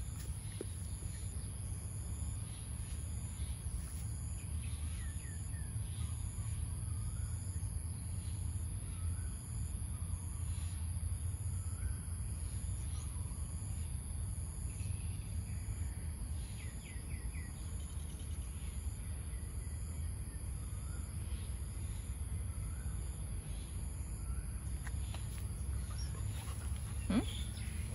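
Outdoor ambience: a steady high-pitched insect drone with an evenly pulsing insect call, scattered faint bird chirps, and a low steady rumble underneath.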